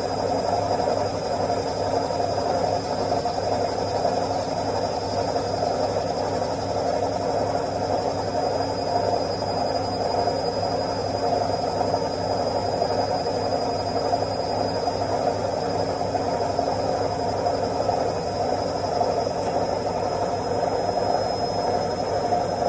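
Washing machine running its spin cycle: a steady whirring hum from the spinning drum and motor, with a thin, constant high whine over it.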